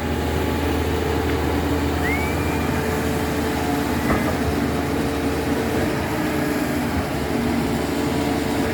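Backhoe's diesel engine running steadily under load while digging, with a short rising-and-falling chirp about two seconds in and a single knock about four seconds in.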